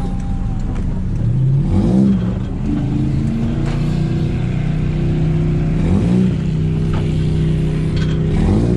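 Off-road buggy engine running as the buggy drives along a dirt track, with the pitch sweeping up briefly as it revs about two seconds in, again about six seconds in, and near the end.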